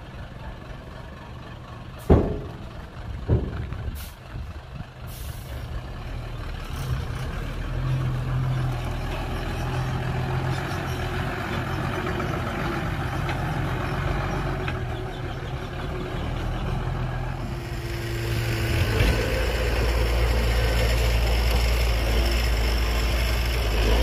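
Diesel engines of Hyundai dump trucks running and pulling away, with a sharp bang about two seconds in and a smaller one shortly after. The engine noise builds from a few seconds in and turns to a heavier, deeper rumble near the end.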